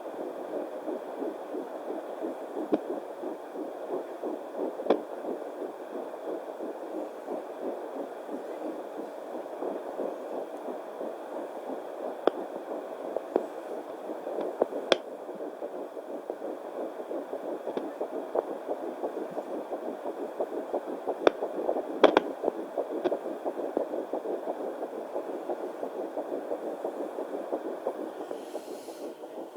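Fetal Doppler monitor's speaker giving a steady whooshing hiss with a fast pulsing texture as the probe searches the abdomen early in pregnancy, with a few sharp clicks scattered through it.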